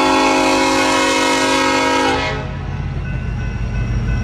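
BNSF freight diesel locomotive's air horn sounding one long blast, several tones at once, which cuts off about two seconds in. Beneath it the locomotives' diesel engines drone low and come forward once the horn stops, as the coal train pulls out.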